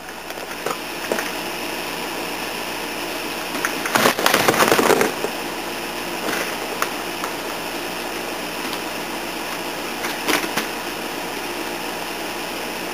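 A steady machine-like hum, with a burst of rustling and knocking handling noise about four seconds in and a few short clicks.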